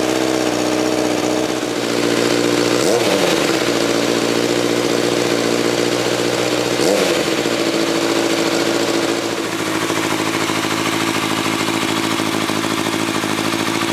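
Kawasaki 636 inline-four motorcycle engine idling as it warms up from a cold start, with two brief throttle blips about three and seven seconds in.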